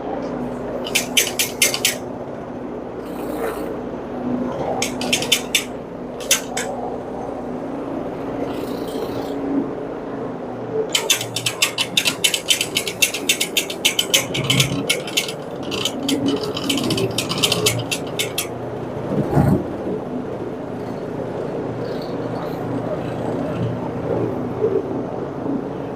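A carpet-cleaning machine runs with a steady hum while being worked across the carpet. Bursts of rapid, even clattering come and go, the longest lasting about seven seconds in the middle. A single dull thump comes near the end.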